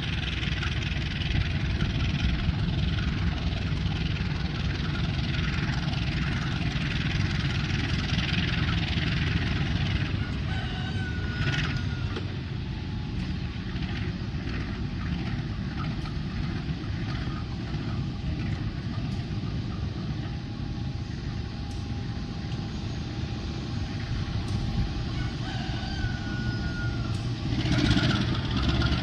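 Diesel-electric locomotive idling, a steady low engine rumble, with a couple of short, higher calls in the background.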